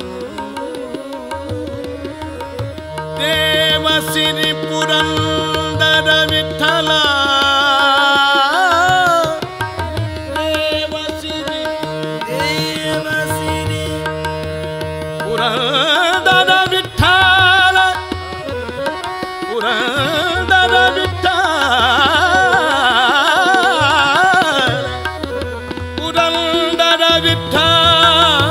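Live Indian classical music: a male vocalist singing long, ornamented phrases with quick wavering runs, over held harmonium notes, tabla and a tanpura drone.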